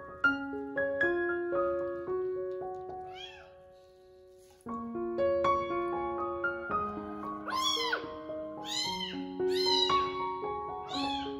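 A very young kitten meowing while it is bathed: several high, falling cries, one faint early and four stronger ones close together in the second half. Background music with a light melody of short notes plays under it, dropping out for about a second near the middle.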